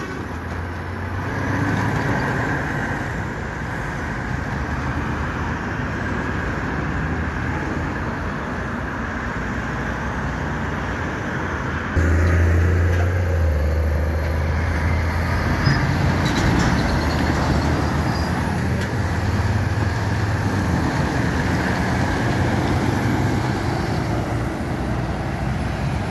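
Road traffic dominated by heavy diesel trucks with semi-trailers passing: a low, steady engine drone over tyre noise. About halfway through it turns suddenly louder, with a truck engine close by for a few seconds.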